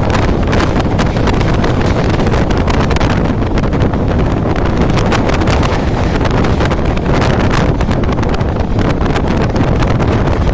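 Express passenger train running at speed, heard from on board: a steady rumble and wind buffeting the microphone, with many quick clicks and rattles from the wheels and coaches on the track.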